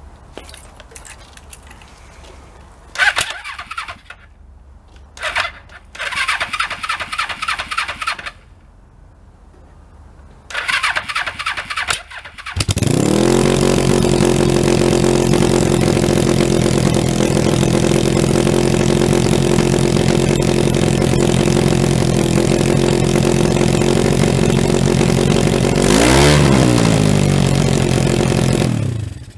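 Motorcycle engine being cranked over in three short bursts before it catches about 12 seconds in. It then idles steadily, gets one quick blip of throttle near the end, and is switched off.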